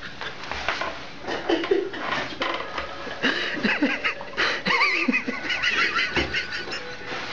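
People laughing and giggling, with high, wavering laughter strongest in the middle.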